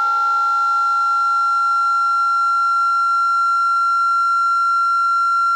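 Homemade electronic noise box sounding a steady, high-pitched electronic tone with a ladder of overtones, holding one unwavering pitch, while a weaker lower tone fades away over the first seconds.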